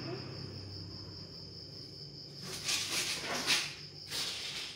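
A steady, high-pitched insect trill runs throughout. A few short rustling swishes come in around the middle.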